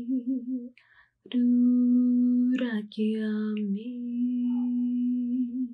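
A woman's voice toning long held notes on one steady pitch, three notes in all, with a short pause for breath about a second in and a brief break in pitch about halfway through.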